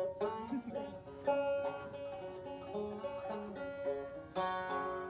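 Banjo being picked: a quick run of plucked notes over a ringing higher note that carries through.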